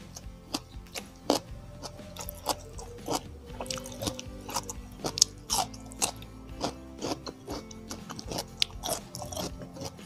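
Close-miked chewing: irregular wet mouth clicks and smacks, several a second, of a person eating rice and sausage, with steady background music underneath.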